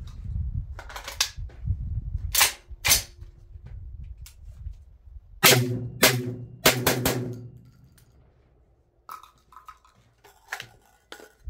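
Tokarev TT12 semi-automatic 12-gauge shotgun firing Winchester AA 1,145 fps target loads in quick succession: two shots about half a second apart, then three more within about a second and a half. Light clicks follow near the end.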